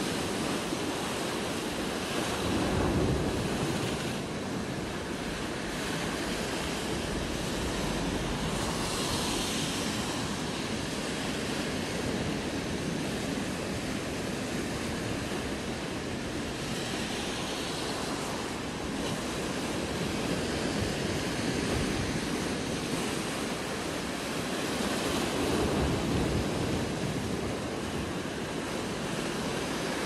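Rough sea surf breaking over rocks and against a seawall: a steady rushing wash that swells now and then as bigger waves break.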